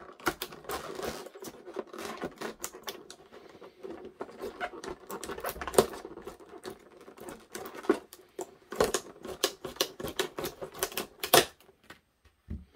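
Kitchen shears snipping through a stiff clear plastic clamshell package: a rapid, uneven run of clicks and crackles as the blades cut and the plastic flexes, with a few louder snaps about two-thirds of the way through and near the end.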